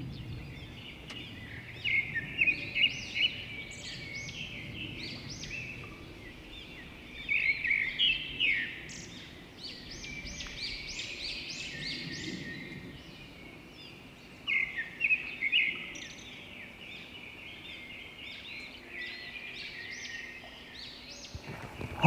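A songbird singing in three main bursts of quick, high chirping notes, about two, seven and fourteen seconds in, with a few softer notes between.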